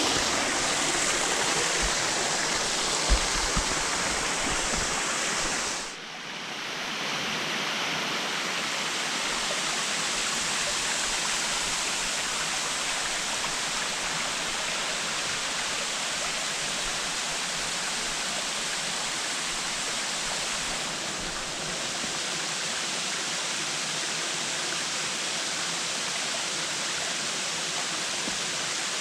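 Rushing water of a waterfall and stream, a steady full hiss that dips briefly about six seconds in and then carries on. A small knock about three seconds in.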